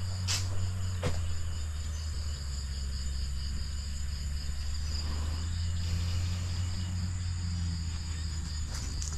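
Night insects, crickets among them, chirring steadily over a low steady hum. There are two short clicks in the first second or so and another near the end.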